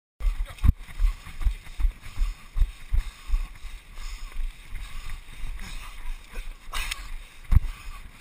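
Thuds of running footsteps jolting a body-worn camera, about two to three a second, over a rushing of wind noise on the microphone; a single louder knock near the end.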